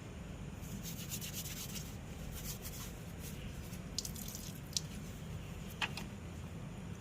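Short bouts of rubbing and scraping, then three sharp small clicks, over a steady low hum.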